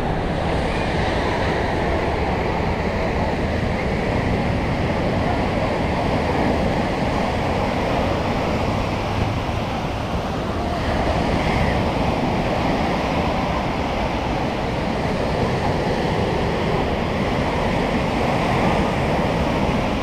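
Ocean surf breaking and washing up over the sand at the water's edge, a steady rushing with gentle swells in level.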